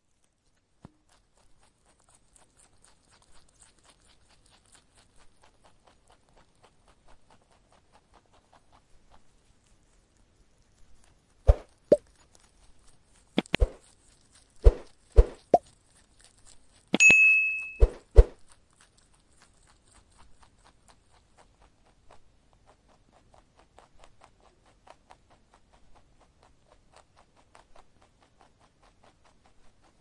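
Faint crunching of a rabbit chewing grass. Partway through, a subscribe-button sound effect cuts in: a quick series of sharp mouse clicks and a single bell ding.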